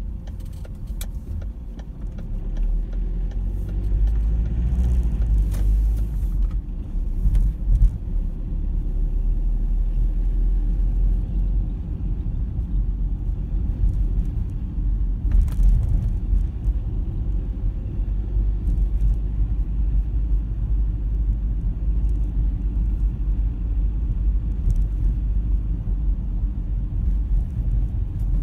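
Steady low rumble of engine and road noise inside a moving car's cabin, with a few short clicks, one near the start and one about halfway through.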